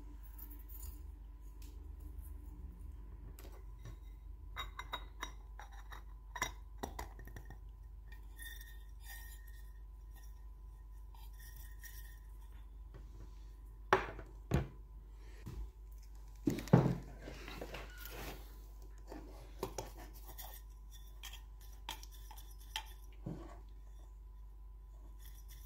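Metal coiled-wire soldering tip cleaner ball and its holder being handled and pressed together: scattered small clinks and rustles of the wire, with a few louder knocks about fourteen and seventeen seconds in.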